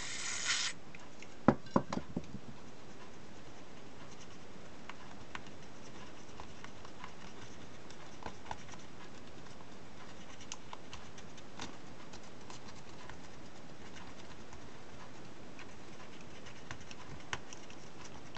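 Cotton swab scrubbing flux residue off an electric shaver's circuit board: faint scratching and small ticks over a steady hiss. A few sharp clicks come about a second and a half in.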